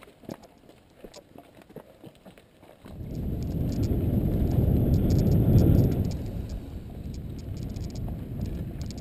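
Mountain bike running down a dirt trail: light clicks and rattles at first, then about three seconds in a sudden loud low rumble of wind buffeting the camera microphone as the bike gathers speed. The rumble is strongest about halfway through and eases off somewhat but keeps going.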